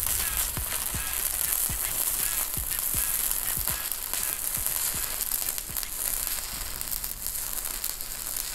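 Shielded metal arc (stick) welding arc burning steadily: a continuous crackling sizzle with frequent sharp pops.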